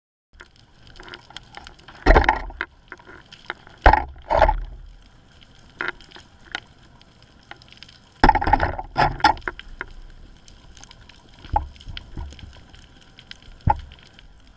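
Underwater sound picked up by a camera in its housing: irregular bursts of bubbling, gurgling water noise, the longest lasting about a second, with a few short sharp knocks between them.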